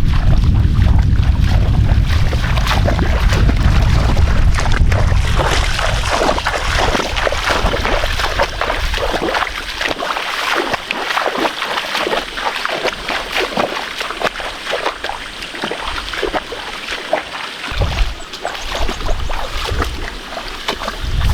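Irregular splashing and sloshing of muddy water. A low rumble under it for the first several seconds fades out about halfway through.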